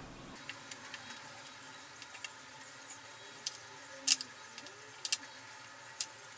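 A few sharp, light clicks and taps from hands working over ceramic plates with raw chicken breast fillets, the loudest about four seconds in and a quick double click about five seconds in.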